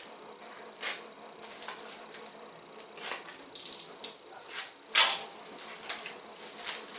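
Cardboard box being opened by hand: scattered scraping and rustling of cardboard flaps and packing tape, in short irregular noises, the loudest about five seconds in.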